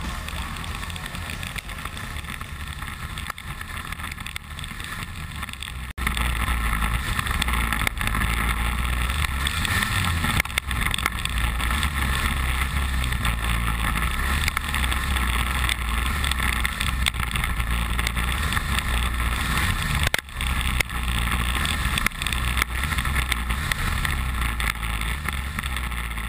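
Arctic Cat snowmobile engine running steadily while riding, heard from the hood. It gets suddenly louder about six seconds in and dips briefly near twenty seconds.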